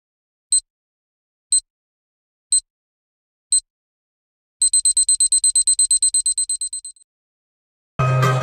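High electronic beeps: four single beeps a second apart, then a fast run of about eight beeps a second that fades out, like a digital alarm-clock beep. Live music cuts in near the end.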